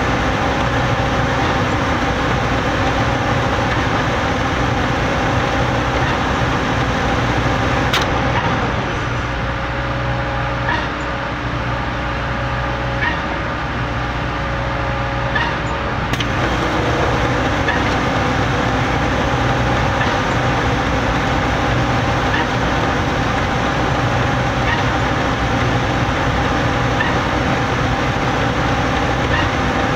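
Putzmeister trailer-mounted concrete pump and the ready-mix truck feeding it running steadily while pumping concrete: a constant engine drone with faint regular clicks every couple of seconds.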